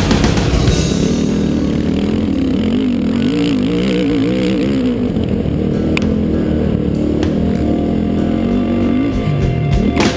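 Off-road vehicle engine running under load over sand, its revs wavering up and down, with rock music mixed over it.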